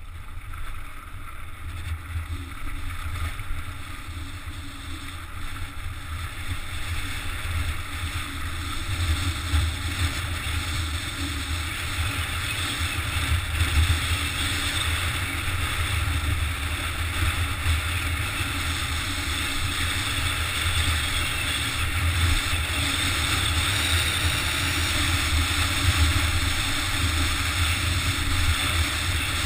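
Wind buffeting the bike-mounted camera's microphone over the hiss and rattle of mountain bike tyres and frame on a loose gravel track, growing louder over the first several seconds as the descent speeds up.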